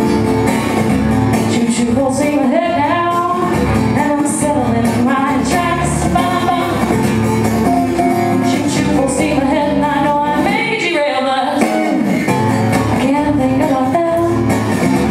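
Live acoustic song: a singer's voice over strummed acoustic guitars, played without a break.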